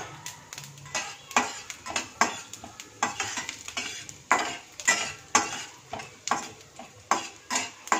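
Slotted stainless-steel spatula stirring and scraping chana dal and urad dal around a stainless-steel kadai, about two strokes a second, with the dals sizzling lightly in the hot oil as they roast for a tempering.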